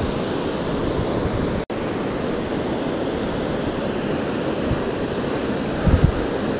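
A mountain creek running high and hard at about 500 cfs, rushing over rocks in whitewater rapids: a steady rushing roar. The sound cuts out for a split second about a second and a half in, and there are a couple of low thumps near the end.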